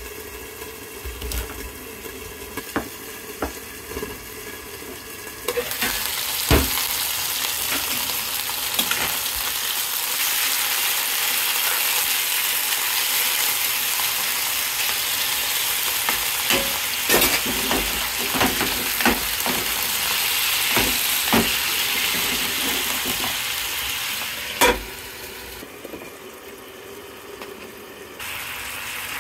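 Skin-on chicken thighs sizzling in hot oil in a nonstick frying pan, with clicks of tongs moving the pieces. Before the frying starts there are a few quiet knife cuts through green pepper on a cutting board. The sizzle ends with a sharp knock and drops to a quieter background.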